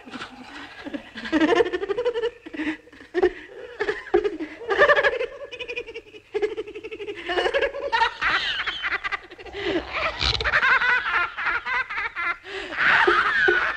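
A cartoon man laughing in long bursts of relief after finding that the frightening knocking was only cattails beating on a log; the laughter turns into a quick run of ha-ha-ha pulses near the end.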